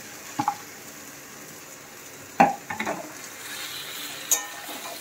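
Sliced button mushrooms dropping into a steel kadai of frying masala, then a metal spatula knocking and scraping against the pan as they are stirred, over a low sizzle. The loudest sound is a sharp metal clank about two and a half seconds in, followed by a few lighter knocks.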